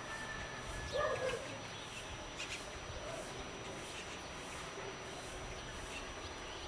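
A dog barking a quick couple of times about a second in.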